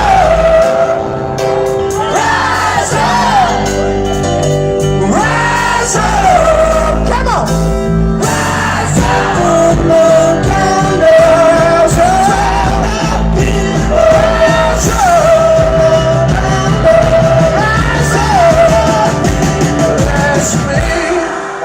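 Live rock band playing with loud singing over it, echoing in a large room; the bass and drums drop out near the end.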